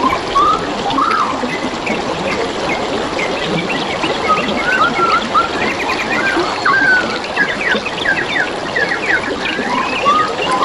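Water trickling steadily, with many birds chirping and whistling over it in quick, overlapping calls.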